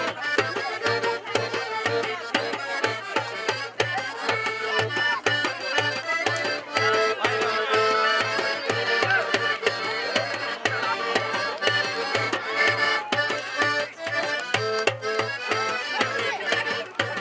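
Upbeat folk-style dance music: a melody over a steady drum beat of about three beats a second.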